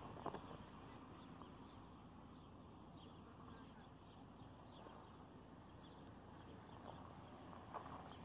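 Near silence: faint outdoor ambience with distant birds chirping, short falling chirps repeated throughout.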